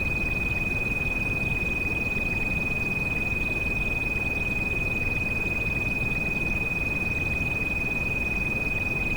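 A steady high-pitched electronic tone held at one unchanging pitch, a tinnitus-masking treatment frequency, over the continuous hiss of rain.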